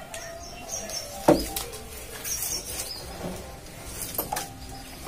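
Mango leaves rustling and their stems snapping as they are picked off a branch by hand, with one sharp snap about a second in and a smaller one near the end.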